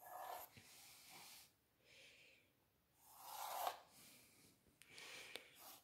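Faint scraping of a pencil ruling lines along a wooden ruler on paper, with the ruler slid across the sheet: about four soft strokes, the loudest about three seconds in.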